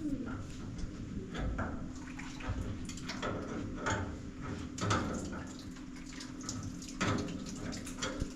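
Water splashing and dripping, with irregular knocks and clatter.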